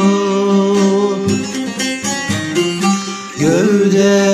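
Turkish folk song. A singer holds the last word of a line, a plucked-string instrument plays a short phrase, and the voice comes back in near the end.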